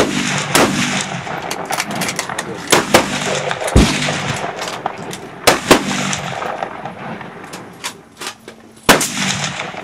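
A suppressed hunting rifle fires at the very start. A loud rushing noise then holds through the rest, broken by a string of sharp cracks and knocks, with heavy ones about half a second, three seconds, four seconds and near nine seconds in.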